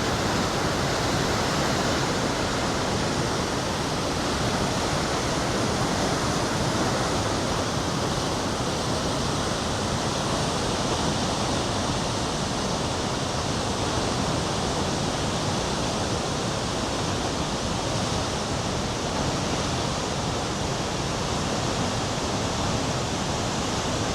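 Cumberland Falls, a large waterfall on the Cumberland River, roaring as a steady, loud, unbroken rush of falling water.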